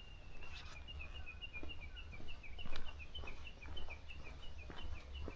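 A songbird singing: a long high whistled note fades out just after the start, then a long quick run of short chirped notes alternating between two pitches, about five a second. Faint footsteps tick now and then underneath.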